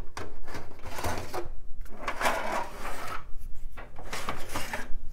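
Drives being pulled out of a desktop computer's 5.25-inch drive bays: three rubbing, scraping slides of the drives' metal casings along the bay.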